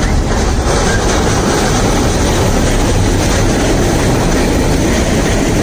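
Damaged freight wagons, covered hoppers and open gondolas, rolling past close by with a very loud, steady rumbling and rattling racket from their defective running gear.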